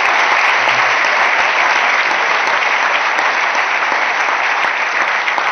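Audience applauding steadily, the clapping easing slightly toward the end.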